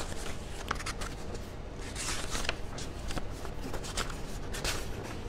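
Sheets of paper being handled and leafed through, rustling with scattered small crackles and clicks.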